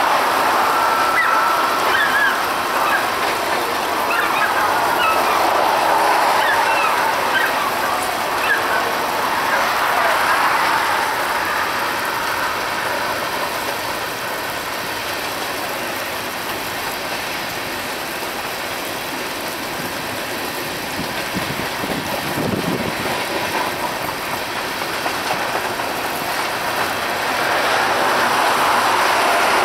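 Coal cars of a freight train rolling past: a steady rush and clatter of steel wheels on rail, easing a little in the middle and building again near the end.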